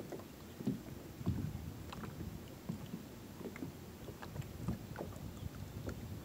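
Water lapping against a kayak hull in irregular low slaps, with a few light knocks and clicks.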